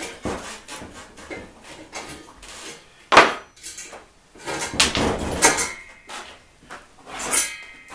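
Metal trike parts and tools being handled, clinking and knocking: one sharp clank about three seconds in, a short clatter around five seconds, and another ringing clink near the end.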